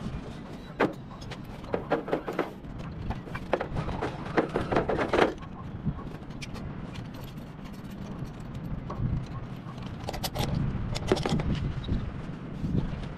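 Metal rope-access hardware, carabiners and rigging gear, clinking and rattling in several short flurries of handling as ropes are rigged on the roof anchors. The busiest stretches come about four to five seconds in and again around ten seconds in, over a steady low background hum.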